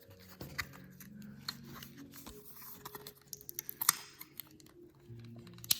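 Stiff plastic blister pack of an Energizer CR2016 coin-cell battery being cut and pried open with an X-Acto knife: scattered crackling clicks and scrapes of the plastic.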